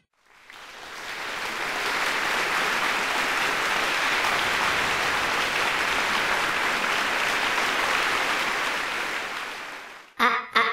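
Audience applause from a recording, fading in over the first couple of seconds, holding steady, then fading out near the end.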